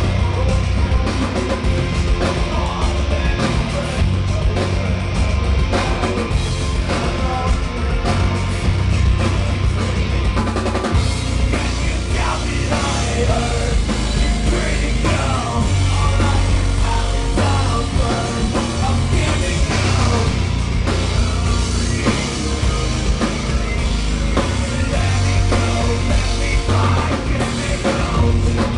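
Live metal band playing loud: guitars, bass and a driving drum kit, with the singer's vocals over the top.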